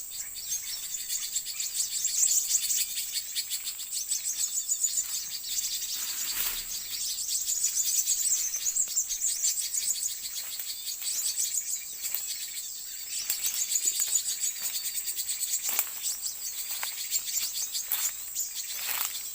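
White-eyes (pleci) twittering in a continuous flurry of thin, high chirps over a steady insect drone, with a few soft knocks.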